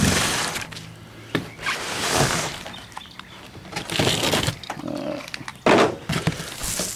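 A cardboard shipping box being cut and torn open, with scraping and rustling of the cardboard and packing in several short bursts and a few sharp clicks.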